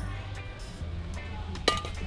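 Background music under a single sharp metal clank about 1.7 s in, with a short ring, as a steel wok is set down onto the wire grate of a small wood-burning camp stove.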